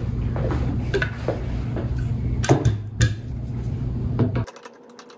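Hard hand tools clinking and knocking, several sharp clicks over a steady low rumble; everything cuts off abruptly about four and a half seconds in, leaving only a faint steady hum.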